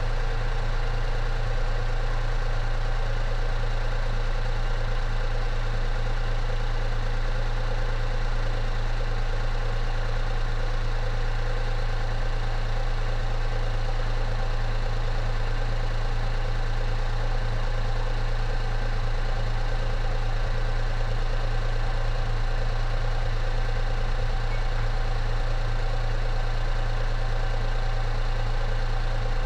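Daihatsu Xenia 1000's three-cylinder petrol engine idling steadily after its throttle body and idle speed control valve have been cleaned and refitted.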